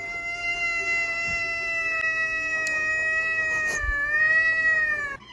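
Cat giving one long, high-pitched squeaky cry, like a squeaky toy, held nearly level, sagging a little in pitch and then cutting off suddenly near the end.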